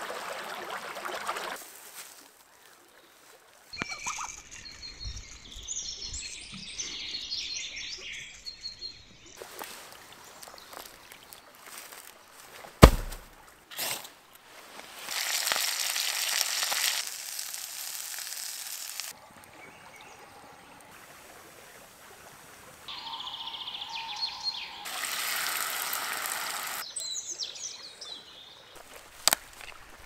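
A sequence of outdoor camp sounds: a rushing forest stream, then songbirds chirping for several seconds, a single sharp crack, and chicken drumsticks sizzling in a frying pan, with more birdsong near the end.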